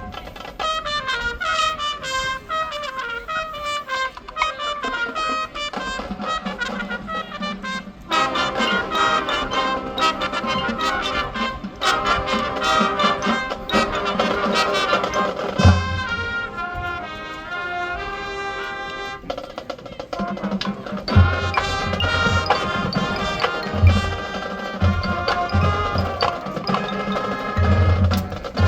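High school marching band playing its competition field show: brass melody over marching percussion, with bass drum hits and a fuller brass passage from about eight seconds in.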